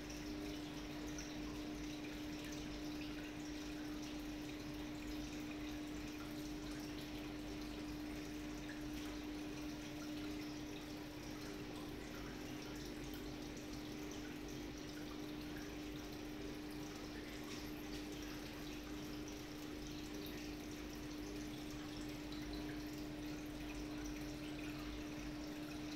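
Aquarium water bubbling and dripping steadily at the filter, over a constant low hum.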